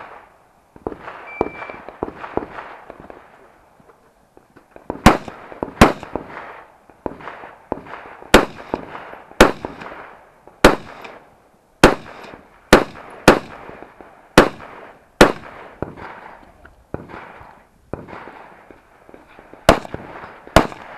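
A shot-timer start beep about a second in, then a rifle firing about a dozen single shots, spaced roughly a second apart, with a pause before a final quick pair near the end. Fainter cracks sound between the loud shots.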